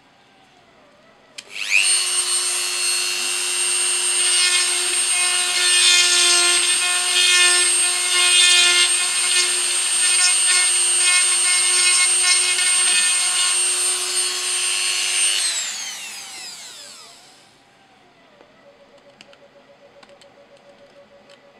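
Handheld rotary tool drilling a burr hole into a 3D-printed plastic skull model. It starts suddenly with a high whine about a second and a half in and runs at a steady speed, then is switched off near fifteen seconds in and winds down, its pitch falling away.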